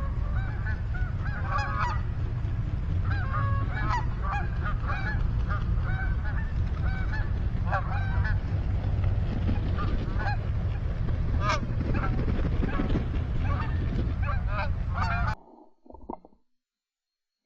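Many geese honking together, short overlapping calls in a continuous chorus over a steady low rumble. It cuts off abruptly about fifteen seconds in.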